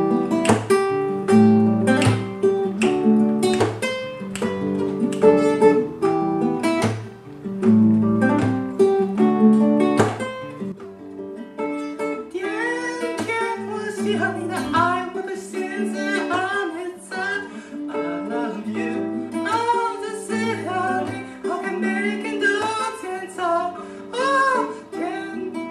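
Classical guitar strummed in a steady rhythm, with a man singing over it from about halfway through.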